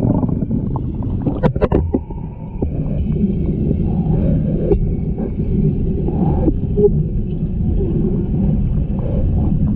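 Muffled underwater sound of a large aquarium, heard through a submerged camera: a steady low rumble of moving water, with a few sharp clicks about a second and a half in.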